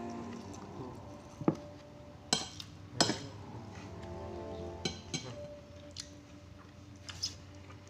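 Metal spoon and fork clinking and scraping against a ceramic plate during eating: a string of sharp clinks, the loudest about three seconds in. Faint background music underneath.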